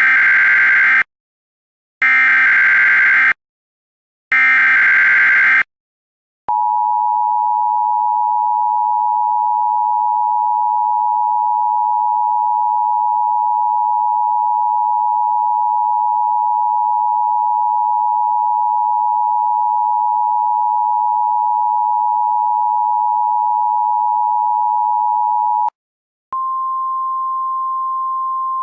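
Emergency Alert System broadcast tones. It opens with three short bursts of harsh, screeching data-header noise, then a steady two-tone attention signal is held for about nineteen seconds and cuts off. After a brief gap, a single steady tone slightly higher in pitch follows near the end, announcing a severe weather warning.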